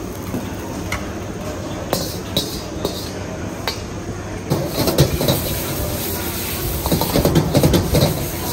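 Gas wok burner running with a steady rumble, while a metal ladle clinks a few times against the wok and bowl. From about halfway, louder scraping and sizzling as noodles are stir-fried and tossed in the wok with the ladle.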